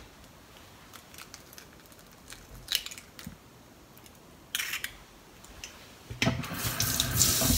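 Light kitchen handling sounds as a raw egg's cracked shell is pulled apart over a stainless steel bowl: scattered faint clicks, then a brief crackle of shell. Near the end comes a louder noisy rustle or rush lasting about a second and a half.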